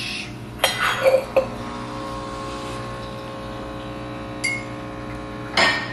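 Stainless steel cocktail shaker pieces clinking sharply against each other and the counter, several ringing clinks about a second in and another near the end, with a steady humming tone underneath.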